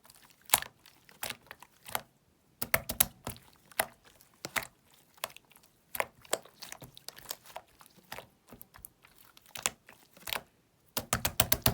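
Slime being squished and played with by hand, making irregular sticky clicks and crackles, with a quick run of them near the end.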